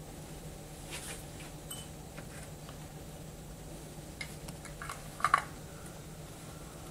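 Faint clicks and taps of glassware being handled, then a cluster of sharper clinks a little past five seconds in as the metal screw lid is set on the glass honey jar and twisted shut, over a low steady hum.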